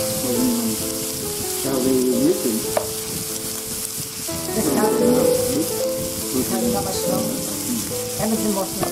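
Beef slices and shrimp sizzling on an indoor grill plate, a steady frying hiss, with music playing underneath.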